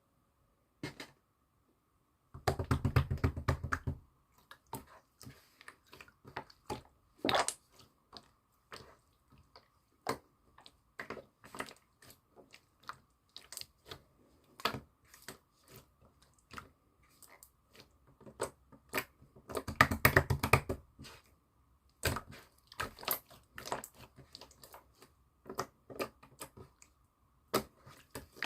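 Irregular small clicks and taps from close-up handling of objects, with two short dense rattling bursts, one about two and a half seconds in and one about twenty seconds in. A faint steady high hum runs underneath.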